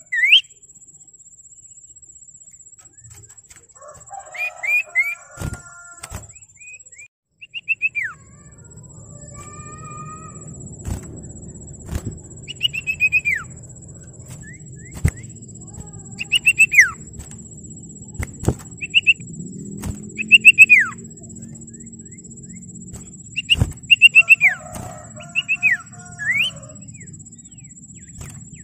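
Common iora (sirtu/cipoh) calling: short groups of two to four high whistled notes, each ending in a falling slur, repeated every few seconds. A steady low background rumble comes in about eight seconds in.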